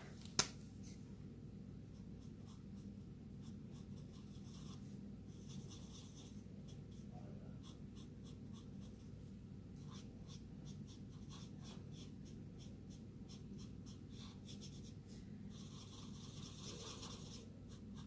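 Stampin' Blends alcohol marker nib scratching faintly on card stock in quick short colouring strokes, in bursts with short pauses, over a low steady background hum.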